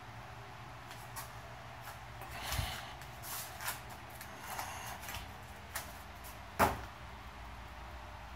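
A few scattered light knocks and clicks over a steady low hum, with a dull thud about two and a half seconds in and a single sharper knock, the loudest, about two-thirds of the way through.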